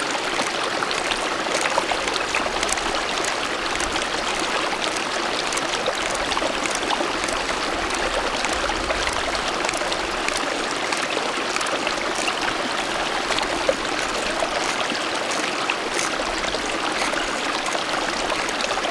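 Small mountain stream running steadily over rocks, an even babble of water with faint scattered ticks.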